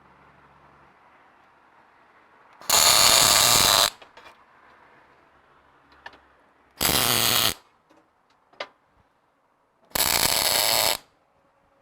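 Three short arc-welding tack welds on steel bumper plates, each a steady crackling buzz of about a second that starts and stops abruptly, with small clicks between them.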